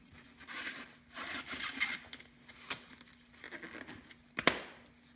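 A pre-oiled Rem Oil gun-cleaning wipe being pulled from its plastic canister and torn off, in several short rustling, tearing pulls. A single sharp click comes near the end.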